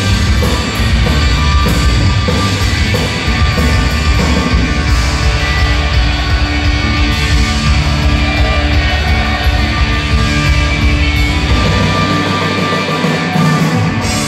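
Punk rock band playing live on a loud PA: distorted electric guitars, bass and drum kit in an instrumental passage, with no singing. The low end drops out briefly near the end.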